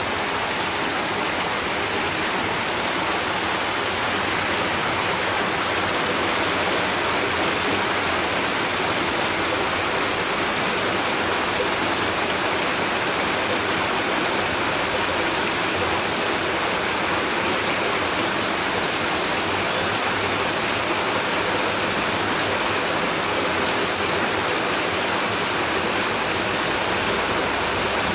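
Water running steadily through a shallow stream, an even, unbroken rushing babble.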